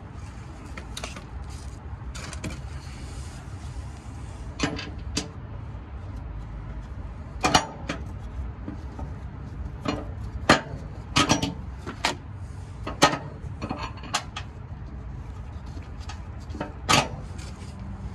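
Irregular sharp metal clicks and taps as a bolt is set into and fastened on a skid plate's access cover, over a steady low rumble.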